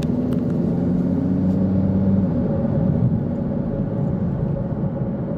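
Steady road and engine rumble inside a moving car, with a low hum.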